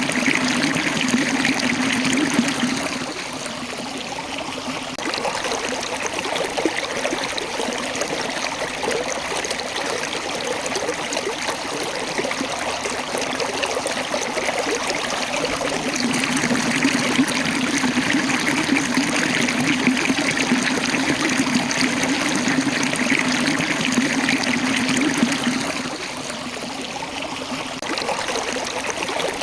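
A small waterfall, water rushing and trickling over rocks in a continuous splashing. It is louder for the first few seconds, eases off, then swells again for about ten seconds before easing near the end.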